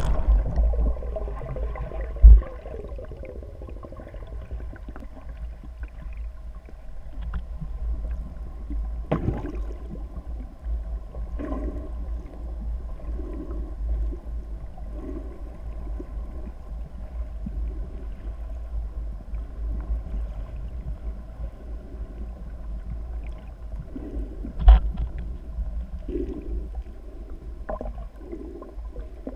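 Underwater sound through a camera housing: a steady muffled low rumble of water, with two sharp knocks, one about two seconds in and one near the end, and faint soft pulses about once a second in the later part.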